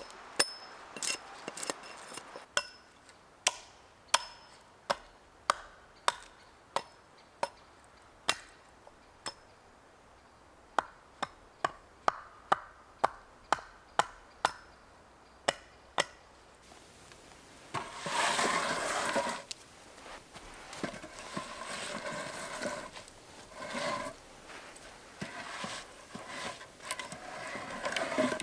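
Chopping wood: a run of sharp single strikes, roughly one to two a second, some with a short ring. They stop after about 16 seconds, and a rougher, irregular scraping and rustling follows in the last third.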